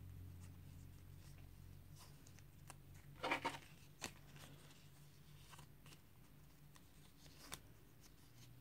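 Fresh banana leaf crinkling and rustling as it is folded by hand, a few short crackles, the loudest cluster about three seconds in, over a faint steady hum.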